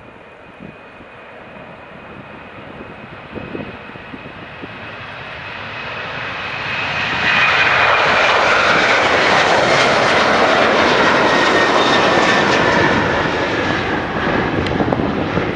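Boeing jet airliner taking off at full power. The engines' roar swells over the first seven seconds as the plane nears, stays loud as it passes and climbs, then begins to ease. A high engine whine sits over the roar and falls slightly in pitch as the plane goes by.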